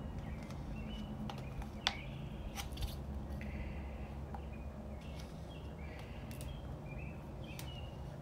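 Small birds chirping in short calls in the background, over a steady low hum. A few light clicks come from the plastic stir stick against the cup and bottle as epoxy resin is scraped out into the cup.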